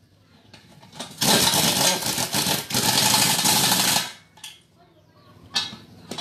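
Pneumatic impact wrench hammering for about three seconds, with a brief dip partway, as it runs the nuts onto the bolts of a walk-behind tractor's two-piece wheel rim. A few short metal knocks follow near the end.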